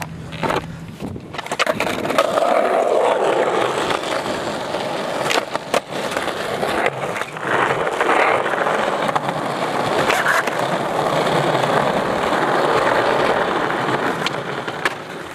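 Skateboard wheels rolling over rough asphalt, a steady rolling noise, broken several times by sharp clacks of the board being popped and landing.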